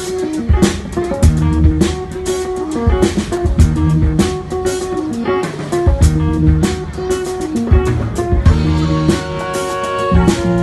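Live band playing an instrumental passage: drum kit keeping a steady beat under bass, electric guitar, keyboards and saxophones, with no singing.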